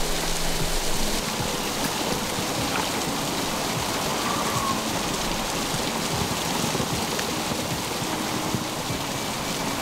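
Hot spring waterfall pouring off a cliff and splashing onto rock and into the pool, a steady, even spatter.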